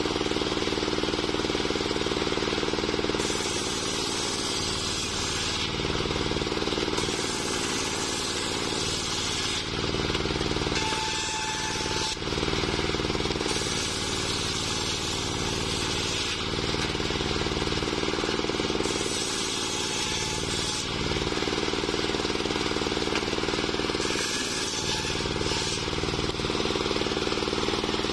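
Homemade engine-driven circular saw running steadily while its blade rips waru (sea hibiscus) logs lengthwise. The cutting noise grows and eases every few seconds as the wood is pushed through the blade.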